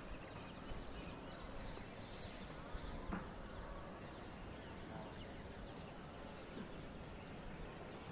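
Birds chirping and calling here and there over a steady outdoor background hiss.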